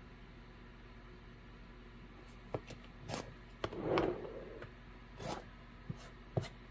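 Quilting tools handled on a cutting mat: after a couple of seconds of quiet, a handful of light clicks and taps from an acrylic ruler and rotary cutter. About four seconds in comes a short scraping rustle as the ruler and fabric pieces are slid across the mat.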